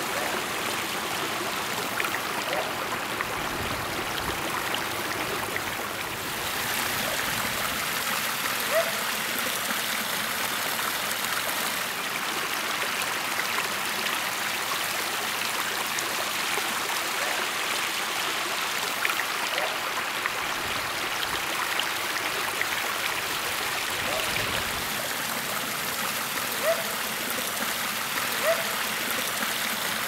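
Water from a pondless waterfall splashing steadily over rocks and running down a rocky stream, with a few brief plinks standing out.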